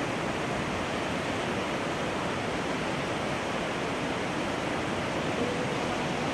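Steady rushing of a small waterfall pouring into a rock pool, an even, unbroken wash of water noise.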